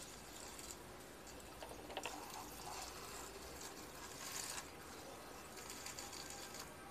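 A thin stream of water splashing onto leaves and potting mix in clear plastic cups while cuttings are watered lightly, louder for a moment about two seconds in and again a little after four seconds.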